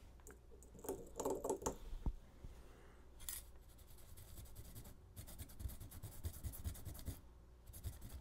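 Quick scratchy rubbing and scrubbing on a graphics card's circuit board, cleaning flux residue off the freshly tinned memory-chip pads. The strokes come thickest from about five to seven seconds in.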